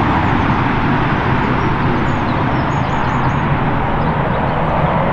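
Embraer E190 airliner on final approach, its twin turbofan engines giving a steady jet roar. A few faint high bird chirps sound over it about two to three seconds in.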